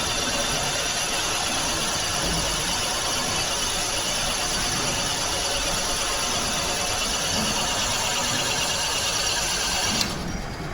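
Metalworking machine tool running steadily: a constant mechanical noise with a high-pitched whine. The whine cuts off suddenly near the end.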